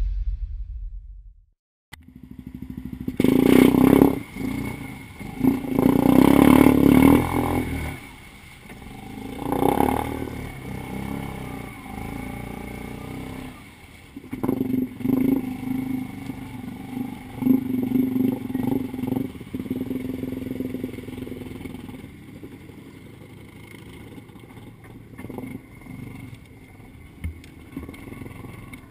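Yamaha Grizzly 550 ATV's single-cylinder four-stroke engine, snorkelled, revving in repeated bursts as it pushes through deep water, starting about two seconds in. The revs are highest over the first several seconds, then come in shorter surges and settle lower near the end.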